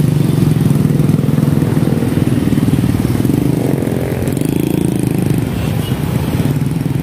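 Dense road traffic of motor scooters and motorcycles, with some cars, passing at close range, their engines running steadily, with a few bikes revving as they pull away about halfway through.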